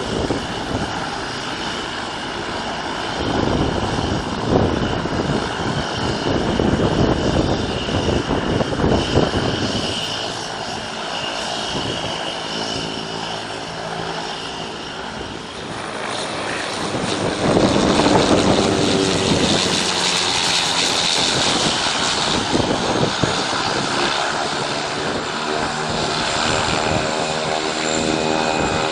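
Propeller aircraft engines running with a steady, multi-toned drone that grows loudest about two-thirds of the way through, over a rushing noise in the first third.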